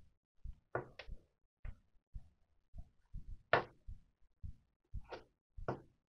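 Irregular soft knocks and brief scrapes, about two or three a second, as a hot covering iron is pressed and worked over Solartex fabric on a balsa model-aircraft wing tip. A few are louder and sharper, near the middle and near the end.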